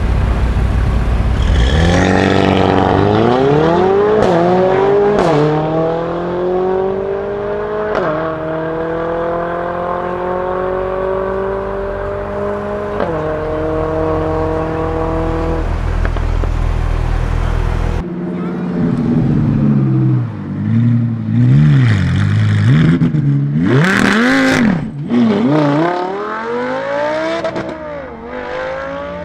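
Two cars launching side by side in a drag race, the four-cylinder turbo Mercedes-AMG A45S with decat Akrapovic exhaust against a Mercedes-AMG GT. The engine notes climb in pitch through four quick upshifts, then fade as the cars pull away. After a cut, another sports car revs and accelerates hard, its pitch dipping and rising through gear changes, with a sharp exhaust crack past the middle.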